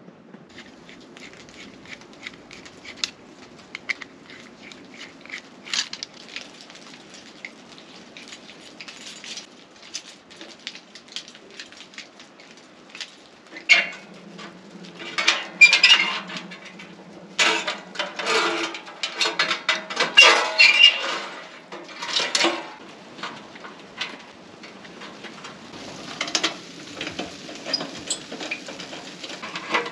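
Cookware and utensils clinking and clattering. Sparse light clicks at first, then a busier run of louder clatter from about halfway through, with a low steady hum underneath.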